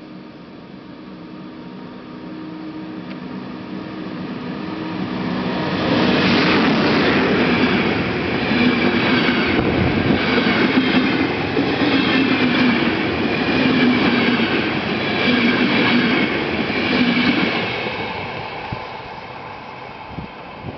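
A PKP EP09 electric locomotive and its passenger coaches passing through a station at speed. A steady hum grows as the train approaches. About six seconds in it becomes a loud rush with wheel clatter repeating roughly once a second as the coaches go by, then it fades as the train pulls away.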